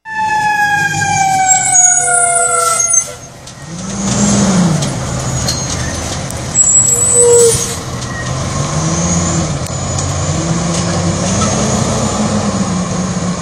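Fire engine siren winding down, its pitch sliding steadily lower for about three seconds, then the fire engine's engine running as it drives through the intersection, its pitch rising and falling as it changes speed, with a short louder burst about seven seconds in.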